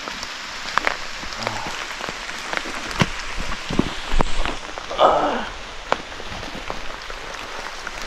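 Heavy rain falling steadily, with many sharp drips and ticks. A few louder low thumps come about four seconds in, and a brief rustling noise just after.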